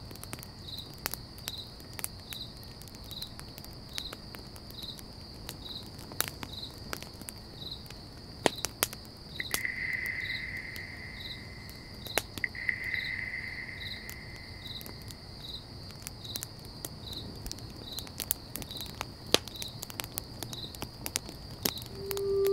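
Insects chirping, a steady high trill pulsing in an even, slow rhythm, over the irregular crackles and pops of a campfire. About halfway through, two drawn-out whistling tones sound one after the other, and near the end a lower tone swells in.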